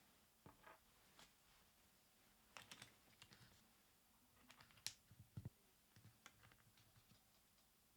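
Faint, irregular clicks and taps from a NuPhy Air75 V3 low-profile keyboard being handled while its knob is fitted, coming in small clusters with the sharpest click a little before the five-second mark.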